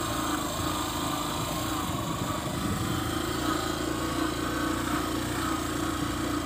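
Geared motorcycle's engine running steadily at low speed while the bike is ridden, its pitch wavering slightly.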